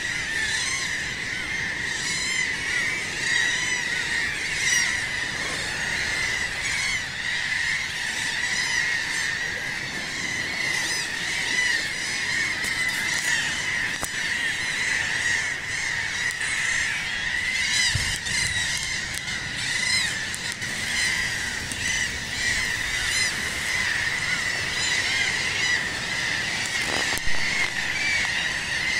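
A large flock of seabirds calling all together: a dense, unbroken chorus of many overlapping cries.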